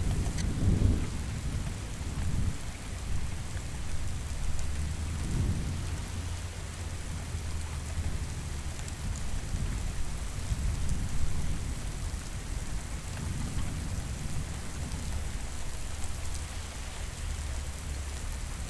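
Steady rain hissing, with low thunder rumbling underneath in rolling swells, strongest about a second in and again around five seconds in.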